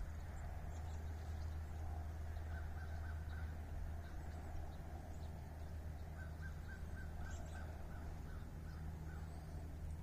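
A bird calling in runs of short, evenly spaced notes, a few about two and a half seconds in and a longer run of about nine from about six seconds in, over a steady low rumble.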